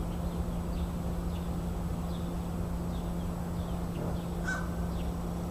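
American crow cawing, a harsh call about four and a half seconds in, heard over a steady low hum and faint high chirps. The crow's calling is taken for a warning aimed at large birds perched nearby.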